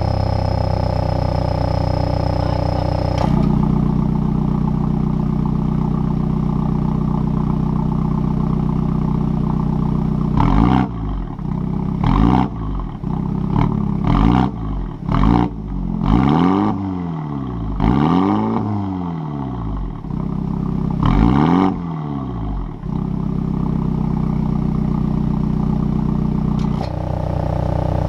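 MINI John Cooper Works turbocharged four-cylinder idling through the JCW Pro exhaust. It is revved in about eight quick blips, each rising and falling in pitch, then settles back to a steady idle. The idle note shifts about three seconds in and again near the end.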